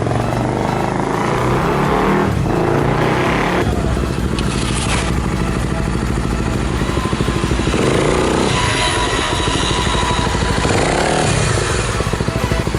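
Honda Tornado 250 single-cylinder four-stroke enduro motorcycle being ridden on a test run, its engine revving up and falling back several times as it accelerates and shifts.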